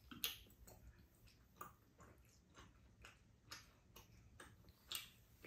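Quiet eating sounds: chopsticks clicking against bowls and soft chewing, with a few sharper clicks.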